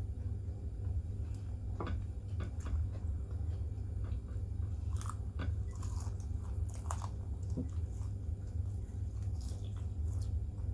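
Close-up chewing and biting of food, with scattered crunchy clicks and crackles, most of them between about five and seven seconds in and again near the end. A steady low hum runs underneath.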